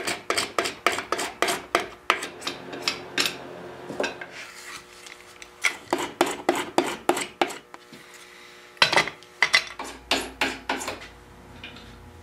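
Hand file rasping the end block of a turned wooden cabinet leg, in quick back-and-forth strokes about three or four a second. The strokes come in runs, with two brief pauses.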